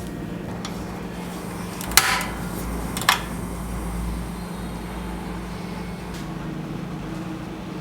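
A steady low mechanical hum, like a kitchen appliance or fan running, with two sharp knocks about a second apart, the first ringing briefly.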